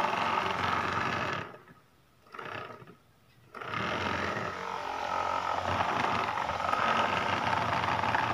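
Small battery-powered DC motor spinning a plastic propeller with a steady whirring buzz. It cuts out about a second and a half in, gives a short burst, then starts again and runs steadily.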